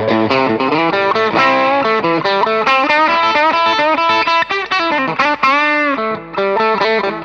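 Soloqueen Telecaster-style electric guitar played through an overdriven, distorted tone: a single-note lead line with string bends, one note bent up and back down about five and a half seconds in.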